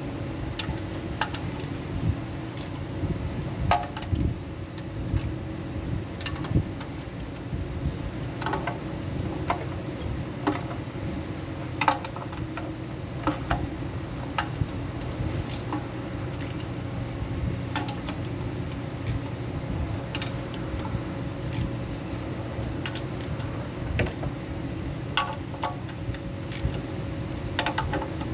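Scattered sharp metal clicks and clinks of a hand tool turning the bolts of an automatic transmission oil pan, over a steady background hum.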